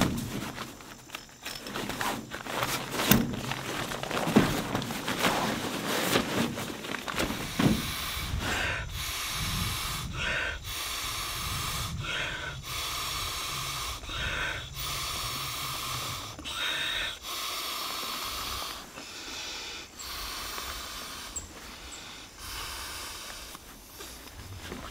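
A man blowing by mouth into the valve of a Therm-a-Rest Marpad sleeping pad to inflate it: long, even, hissing blows about every two seconds, with short breaths in between. In the first third, knocks and rustles of the pad and cot being handled come before the blowing.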